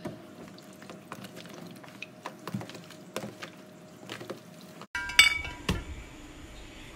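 Hands squeezing and mixing raw meat pieces in a plastic tub, with small wet clicks and taps. About five seconds in, a loud ringing clink of kitchenware.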